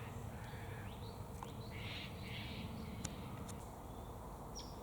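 Faint bird calls: two short rasping calls close together about two seconds in, among a few brief chirps.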